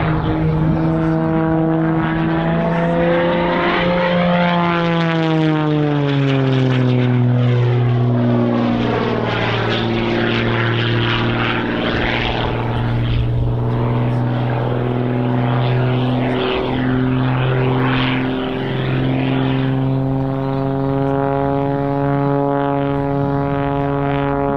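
Engine and propeller of a single-engine aerobatic stunt plane running loud and steady in flight. The pitch drops about five seconds in as it passes, holds low for most of the time, and rises a little near the end.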